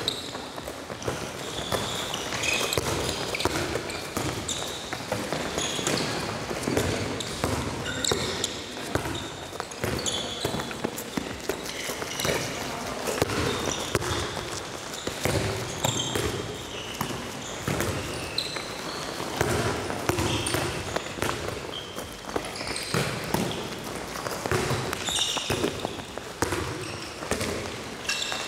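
Handballs bouncing irregularly on a sports hall floor and being caught as players dribble and pass, many short knocks echoing in the large hall.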